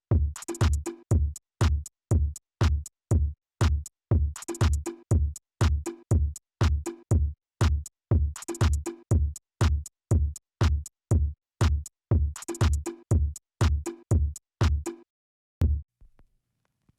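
Electronic music with a steady drum-machine beat of about two heavy kicks a second and brighter snare-like hits. It stops about fifteen seconds in; one last softer hit sounds before it goes quiet.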